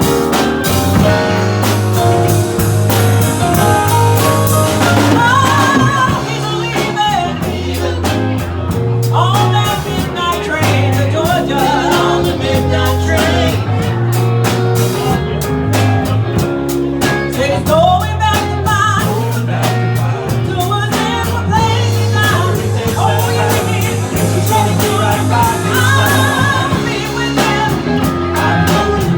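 A live band playing a song with a lead singer, drum kit and held bass notes under the melody.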